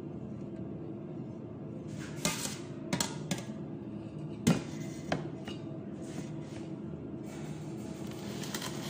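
Stainless steel pot being lifted off a metal platter and set down, giving a few sharp metallic knocks and clanks between about two and five seconds in, the loudest just after the middle. A steady low hum runs underneath.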